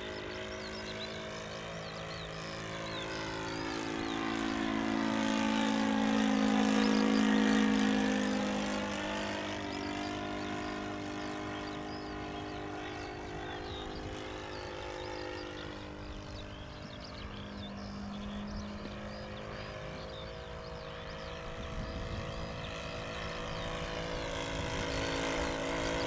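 Engine and propeller of a Seagull Gipsy Moth radio-controlled scale model biplane in flight, with a steady note. It grows louder about five to nine seconds in, where its pitch dips and then climbs back, then eases off and swells again briefly later on.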